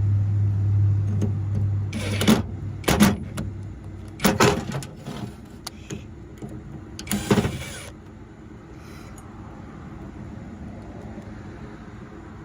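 A small electric motor hums steadily and stops about two seconds in, followed by a few short clatters of metal parts being handled.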